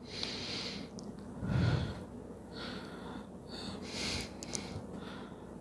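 A person's soft breathing close to the microphone, a few faint breaths, with a brief low bump about a second and a half in.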